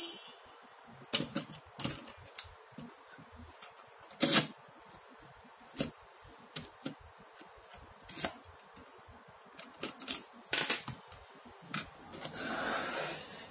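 Scattered metal clicks and knocks from a laptop being seated in an alloy anti-theft display stand, whose toothed clamp arms slide and click along their rack. Near the end there is a longer scraping rub of about a second.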